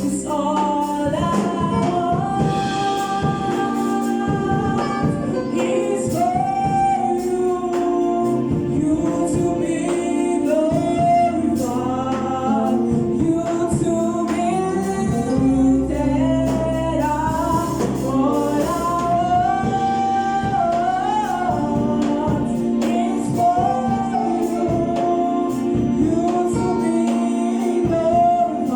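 Gospel choir singing with instrumental accompaniment: a steady bass and regular percussion hits keep a beat under the voices.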